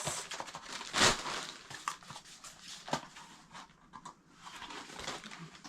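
Parcel packaging being opened by hand: rustling and crinkling with scattered clicks, and a louder tearing rustle about a second in.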